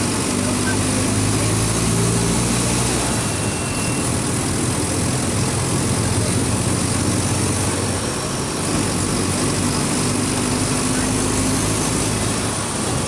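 Mercedes-Benz OF 1722M bus's diesel engine running steadily, its drone shifting slightly in pitch as engine speed changes, with a brief dip about eight seconds in.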